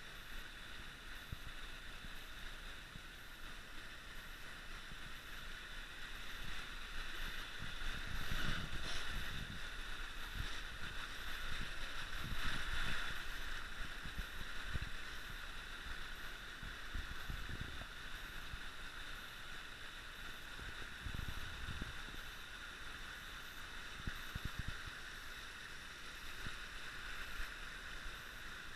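Creek water running and gurgling over shale in a steady hiss, with a few soft low thumps about a third of the way in and again later.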